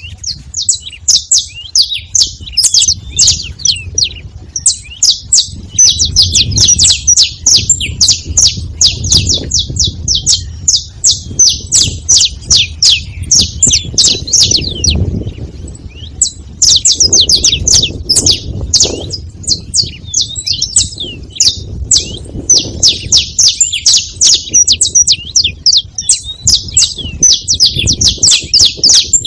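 Saffron finch giving rapid, almost unbroken strings of high chirps, with a short lull about halfway, over a low background rumble.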